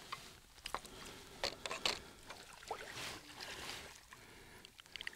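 Faint wash of water with a few scattered sharp clicks and knocks.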